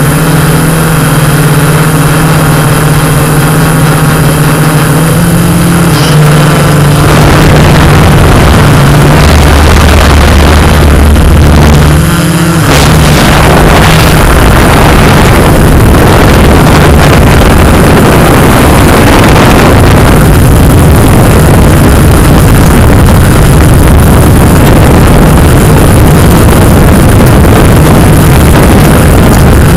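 Quadcopter drone's motors and propellers running, a loud steady hum over hiss whose pitch shifts in steps as the drone flies. The hum dips briefly a little before halfway.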